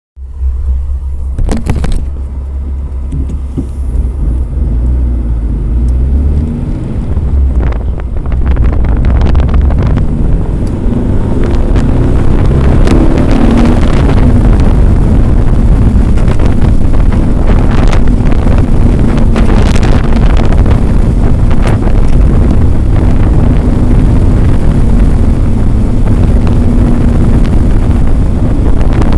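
A car driving, with a steady low rumble and wind noise on the microphone; it gets louder about eight to ten seconds in.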